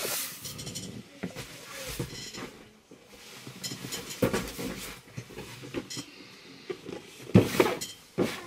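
Cardboard and plastic packaging rustling and knocking as boxed collectible figures are handled and lifted out of a box, with a few sharper knocks, the loudest near the end.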